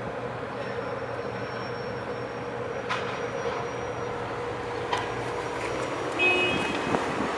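City street traffic with a steady engine hum from a nearby vehicle, two sharp clicks, and a short high beep a little after six seconds.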